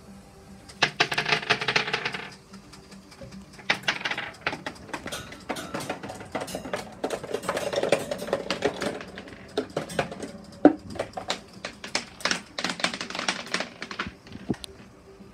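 Glass marbles clicking and rattling against plastic Lego train track as the Lego train runs over them, in bursts of rapid, irregular clatter, with one sharp knock about ten and a half seconds in.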